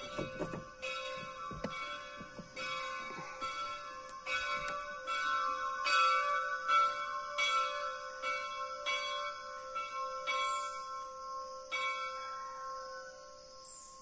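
Old church bell ringing, struck in a steady series of about three strokes every two seconds, its hum lingering between strokes. The strokes stop about twelve seconds in and the ringing dies away.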